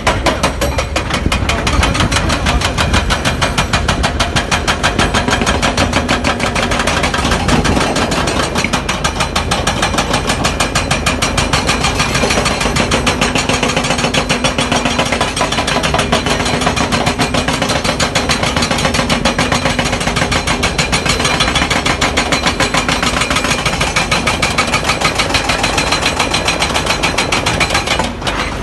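Excavator-mounted Olimpa hydraulic rock breakers hammering stone in a rapid, steady stream of blows, with the excavators' diesel engines running underneath. There is a brief dip near the end.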